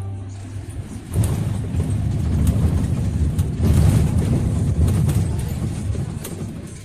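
Low engine and road rumble heard from inside a moving vehicle. It swells about a second in and fades toward the end.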